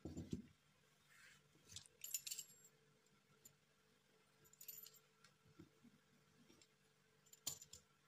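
Faint handling sounds of dough work: a soft thump at the start, then two short crackling, lightly clinking passes of a fluted metal pastry wheel rolling through dough on a plastic sheet, and a single click near the end.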